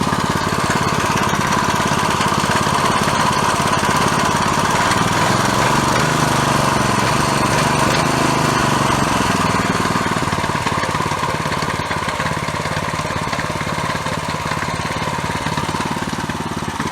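Freshly rebuilt 170F single-cylinder, air-cooled four-stroke petrol engine of a walk-behind tractor running steadily, with its speed governor removed for maximum revs. Its pitch shifts between about five and nine seconds in.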